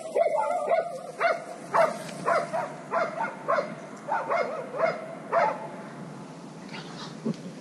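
Laika hunting dog barking in a rapid, irregular series, about two barks a second, fading after about five seconds: the dog baying at a wild boar it has found in the reeds.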